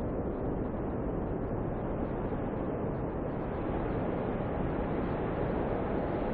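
Snowstorm wind blowing as a steady, even rush of noise, low and dull in tone, without gusts or breaks.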